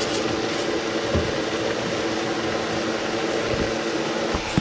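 Gandules sautéing in a rice cooker pot, sizzling steadily over a steady mechanical hum, with a few soft low knocks.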